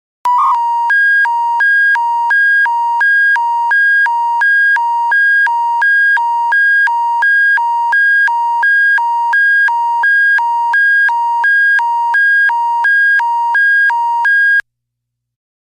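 Electronic emergency-broadcast alert tone: a hi-lo warble that alternates steadily between a lower and a higher beep, about three changes every two seconds. It cuts off abruptly near the end.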